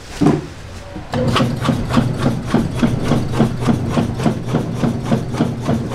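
Blood-and-glass-noodle sundae filling being churned in a stainless-steel tub: a rapid run of even strokes, about five a second, over a steady low hum, starting about a second in after a single knock.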